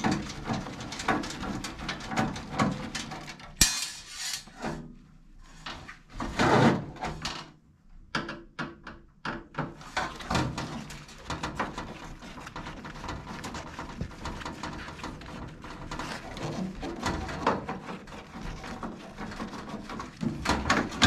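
Screwdriver backing out screws inside a stainless-steel range hood, with small clicks, taps and rustling of gloved hands and wires against the sheet metal. A louder clatter comes about six and a half seconds in.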